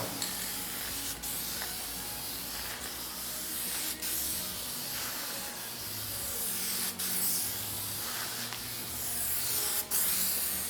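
Aerosol can spraying guide coat over primer before block sanding: a steady hiss in passes, broken by several brief pauses.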